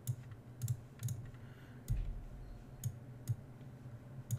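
Computer mouse clicking: about seven separate sharp clicks at uneven intervals, over a steady low hum.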